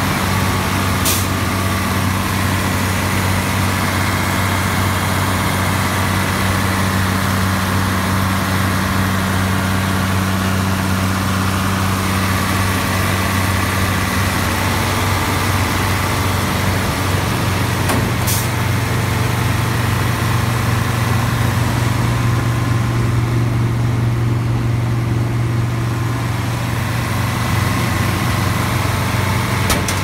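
Iveco Aifo diesel engine of a New Holland TX68 combine harvester running steadily, heard up close in the engine bay, its low hum shifting slightly about halfway through.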